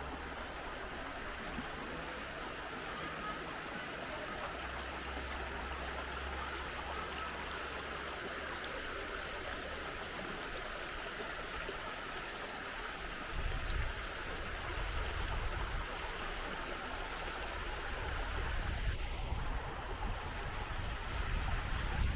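Waterfall water rushing and splashing in a steady, even wash. A low, fluttering rumble joins it about halfway through.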